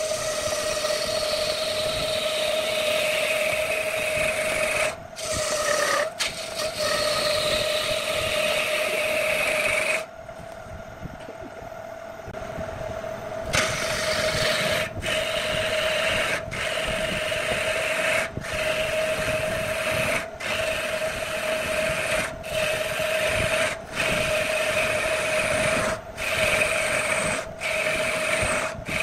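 Wood lathe running with a steady hum while a hand-held turning chisel cuts into the spinning wood blank, a loud scraping hiss of shavings peeling off. The cutting stops for a few seconds near the middle, leaving just the lathe running. It then goes on in short passes with brief breaks between them.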